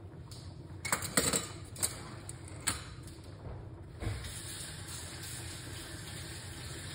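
Kitchen clatter: a few sharp knocks of cookware, then a steady hiss starts about four seconds in.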